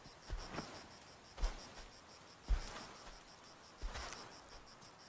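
Insects chirping steadily in a rapid, even pulsing rhythm, with soft low thuds about once a second.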